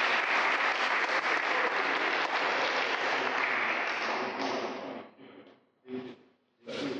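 Audience applauding: a dense patter of many hands clapping that fades away about five seconds in.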